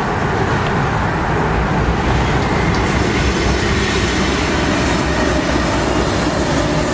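Railroad cars rolling past close by: a steady, loud rumble of steel wheels on the rails that holds level throughout.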